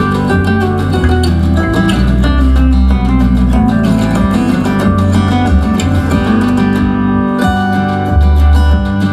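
Guitar-led music with strong, deep bass notes played through a TCL S642W 2.1 soundbar and its subwoofer, heard in the room.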